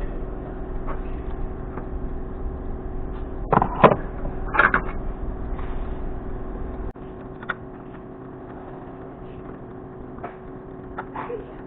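Steady mechanical hum under a low rumble, with a few sharp metallic clanks of parts or tools being handled a few seconds in. The low rumble stops abruptly about seven seconds in and the hum carries on more quietly.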